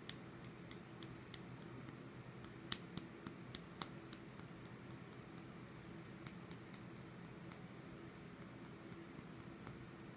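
Light, irregular clicking and tapping of small hard objects, with a quick run of sharper, louder clicks about three seconds in, over a low steady hum.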